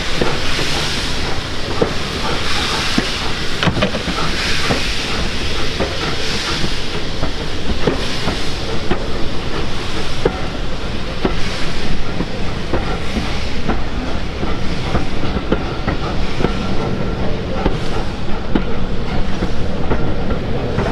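Steam locomotive hauling a train of coaches, its exhaust hissing in repeated swells while the coaches' wheels click over the rail joints.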